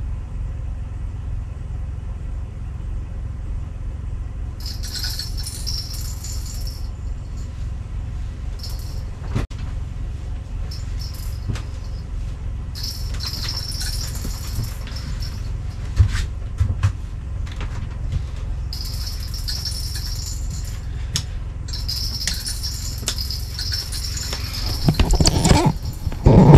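Ice-fishing rattle reel going off in spells of high, jingling rattle, each a couple of seconds long, over a steady low rumble: the sign of a fish taking line on the set line. Heavy knocks and thumps come near the end.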